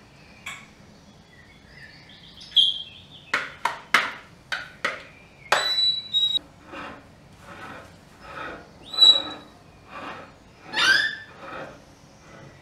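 A metal spoon clinking and scraping against a ceramic plate as thick, creamy taramasalata is dolloped and spread, with soft wet squelches from the dip. There are several sharp clicks, a couple of which ring briefly, then a run of softer spreading strokes about once a second.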